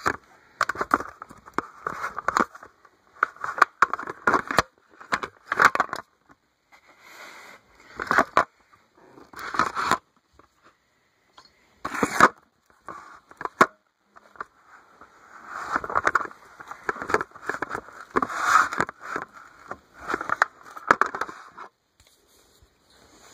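Handling noise: irregular crackling, scraping and clicking in bursts with short pauses, as the art set case and the camera are moved about close to the microphone.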